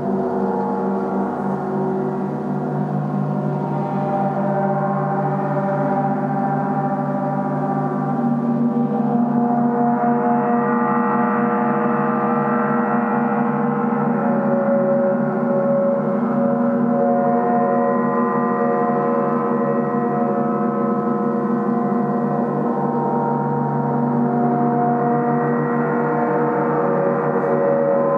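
A gong sounding continuously in a gong bath: a sustained wash of many overlapping ringing tones that never dies away, growing a little louder and brighter about nine seconds in.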